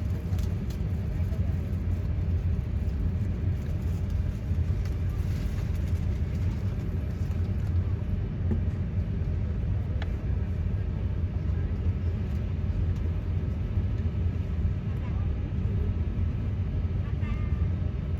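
Steady low cabin rumble inside an Airbus A350-900 on the ground before takeoff, with one brief click about ten seconds in.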